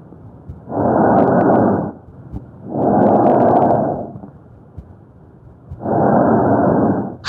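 Recorded auscultation breath sounds of the airway: three loud, noisy breath sounds, each lasting a little over a second, with quieter pauses between them.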